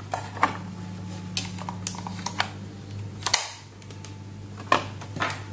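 Scattered light clicks and taps of analog-multimeter test leads and probe tips being handled, with a steady low hum underneath.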